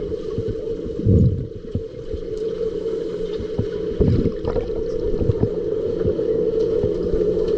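Underwater pool ambience: a steady low hum with scattered knocks, and two low rumbling bursts about a second and about four seconds in.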